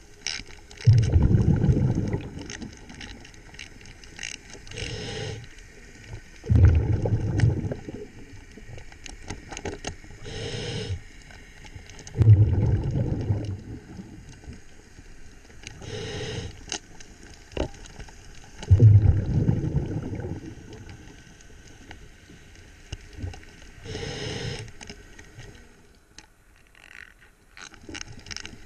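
Diver breathing through a regulator underwater: exhaled bubbles rumble out in a burst about every six seconds, four times, with a fainter hiss of each inhale in between. A few faint clicks sound between breaths.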